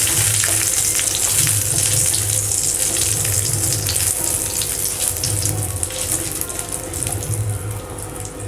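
Whole spices (cinnamon, bay leaf, cardamom and cloves) sizzling and crackling in hot oil in a pan, the sizzle slowly fading.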